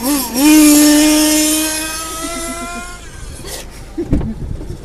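A loud, drawn-out vocal cry that wavers in pitch at first, then holds and slowly rises before fading out about three seconds in. A few dull thumps follow about four seconds in.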